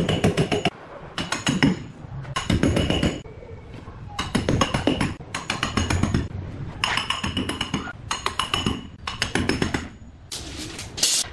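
Hammer striking steel rebar to drive the bars into holes in a wall, in about seven quick bursts of rapid metallic taps with a ringing tone. A brief hiss near the end.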